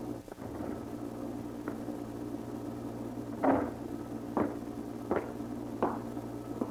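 Several knocks on a wooden, glass-paned door, under a second apart, the loudest about halfway in, over a steady hum.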